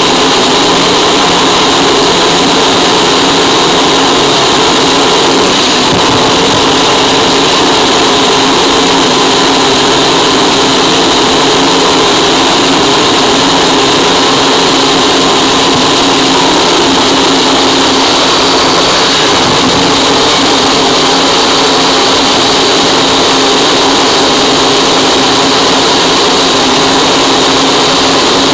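Harsh noise wall: a loud, dense, unchanging wall of distorted static filling the whole range, with no rhythm and no change in pitch.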